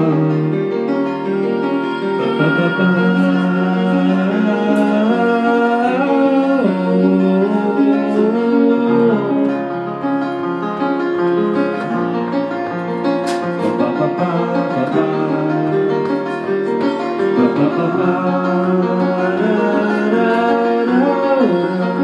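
Keyboard played in sustained chords, with a man's voice singing a wordless melody over it.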